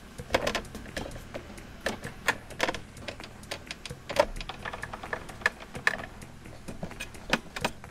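Irregular small clicks and taps as screws are handled, set into and driven with a hand screwdriver into the black plastic housing of a touchscreen head unit.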